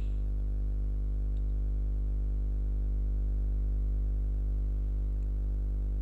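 Steady low electrical hum with a ladder of evenly spaced overtones, unchanging throughout; typical mains hum picked up on a home recording microphone.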